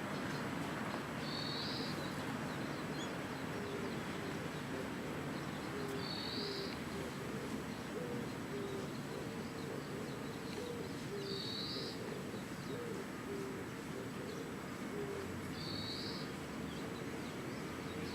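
Birds calling over steady outdoor background noise: a high, short call repeated four times about every five seconds, and a run of low, evenly spaced notes through the middle.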